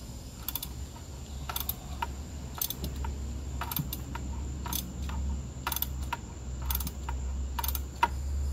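Ratchet wrench clicking in short, slow strokes, about one click a second, as a stubborn spark plug is worked out of the cylinder head a little at a time. The plug is hard to turn because its threads are crudded up and maybe rusty.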